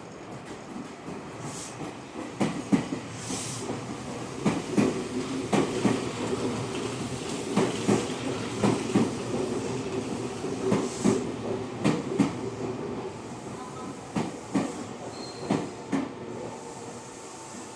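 Semboku Rapid Railway electric train running on the line: a steady low rumble with the repeated clicks of wheels crossing rail joints, louder through the middle and easing off near the end as the train slows.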